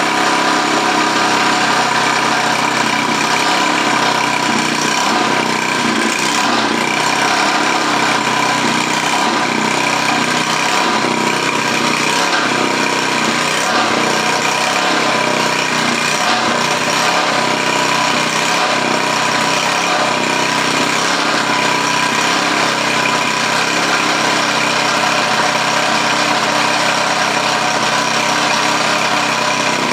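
An old garden tiller's small engine running steadily at an even speed. It is running again after failing to start from sitting all winter.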